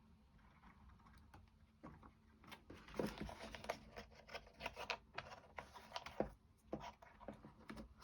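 Light clicks and taps of small wooden kit parts being handled and fitted together by hand, sparse at first and coming several a second from about three seconds in.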